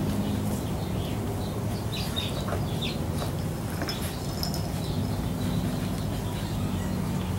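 Yellow Labrador retriever puppies playing with plush toys on a mat: a few small high squeaks and scattered light clicks and scuffles, over a steady low hum.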